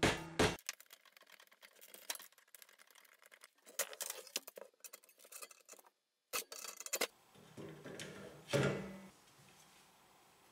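Scattered light clicks and taps of metal against plastic as a machined aluminium pin is worked into a white plastic baby-gate hinge, with a louder clunk near the end.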